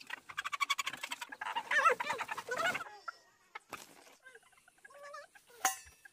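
A flock of chickens squawking and clucking loudly while being caught by hand in their coop, for about three seconds. Then it goes much quieter, with a few faint clucks and a single sharp knock near the end.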